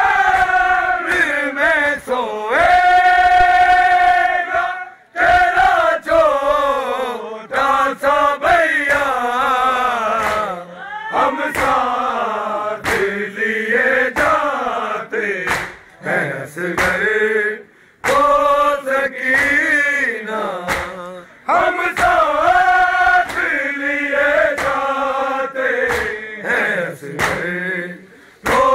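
A lead male reciter and a crowd of men chanting a noha, an Urdu mourning lament, in loud unison. Sharp slaps of matam, hands striking chests, come again and again between the sung lines.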